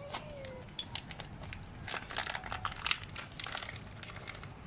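A small clear plastic bag of parts crinkling and crackling irregularly as it is handled and opened by hand.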